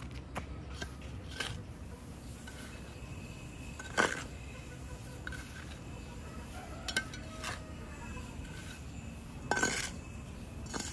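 Several sharp clinks and knocks of hard objects being handled, the loudest about four seconds in and a double knock near the end, over a faint steady background.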